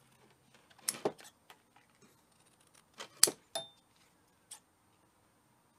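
Large steel scissors snipping through a sheet of paper gasket material: a couple of sharp cuts about a second in, and a louder cluster around three seconds in.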